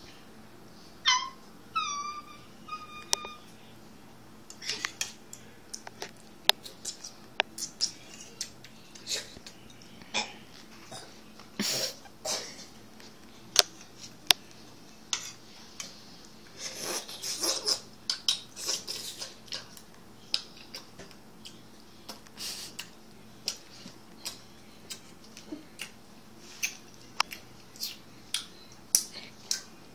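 A small dog whines three times in quick succession about a second in, short high calls that rise slightly in pitch, as it begs at the table. After that a metal spoon clinks and scrapes in a bowl at irregular intervals as the Jell-O is eaten.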